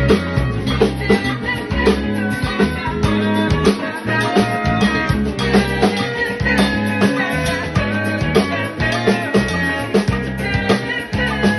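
Fender Custom Shop electric bass playing a busy bass line along with a full-band recording with drums, the low notes changing several times a second.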